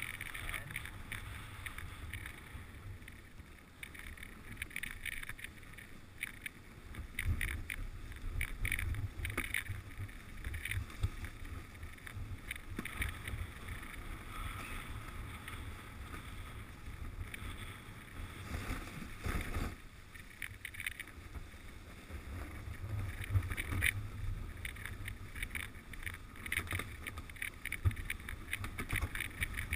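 Wooden dog sled gliding over a packed snow trail: a steady hiss and scrape of the runners on snow with frequent small rattles and knocks from the sled. Wind rumbles on the microphone, swelling and fading.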